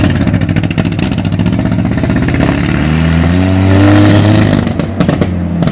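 Willys Jeep engine running loudly as the Jeep pulls away, its pitch rising about three seconds in as it accelerates.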